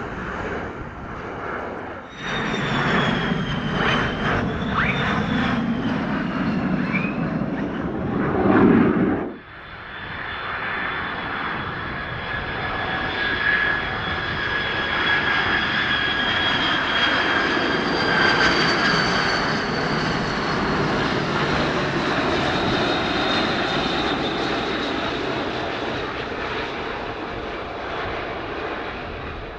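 Lockheed C-130J Hercules turboprops passing close overhead on approach, their whine falling in pitch as it goes by. About nine seconds in it cuts suddenly to a McDonnell Douglas KC-10 Extender's turbofan engines on landing approach: a steady rumble with a high whine that fades a little near the end.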